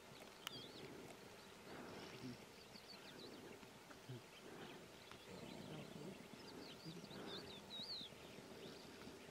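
Near silence: faint outdoor ambience with a few faint high chirps, one about half a second in and a cluster near the end.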